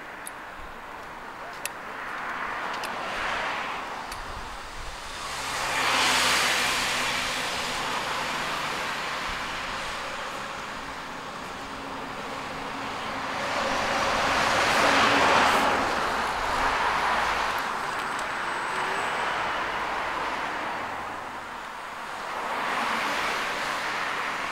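Road traffic: cars passing one after another on the road alongside, each a swell of tyre and engine noise that rises and fades, the loudest about fifteen seconds in.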